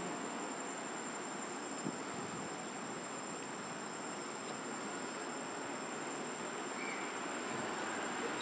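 Steady drone of insects in the trees, a high-pitched whine over an even hiss.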